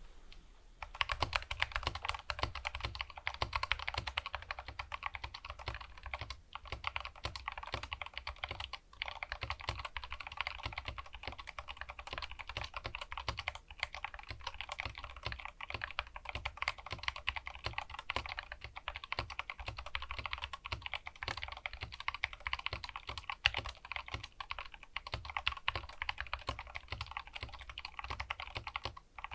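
Continuous fast typing on an SK64S 60% optical mechanical keyboard with Gateron optical brown switches, a steady stream of keystroke clicks with a couple of brief pauses.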